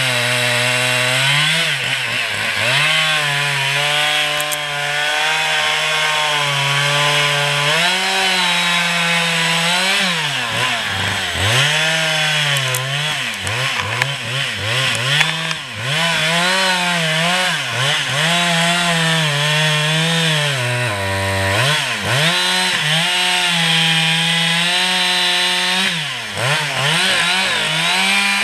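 Chainsaw cutting beech wood. Its engine pitch dips and climbs back again and again as the chain bites into the cut and frees up.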